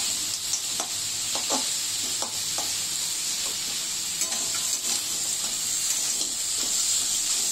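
Crab pieces with onion, tomato and spices sizzling in oil in a metal kadai, with a steady high hiss. A flat metal spatula scrapes and knocks against the pan in short strokes as the mixture is stirred.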